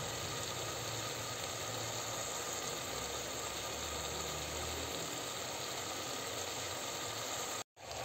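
Sliced mushrooms and onions sizzling in a hot pan, a steady hiss that cuts out briefly near the end.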